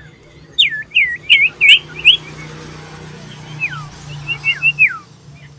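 Common iora (cipoh) calling loudly: about half a second in, a quick run of five clear notes, each swooping down in pitch, then a softer string of falling notes near the end.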